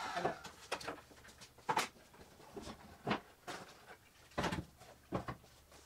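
Pieces of cut wood handled on a workbench: a scattered series of knocks and clacks as boards are picked up and set down.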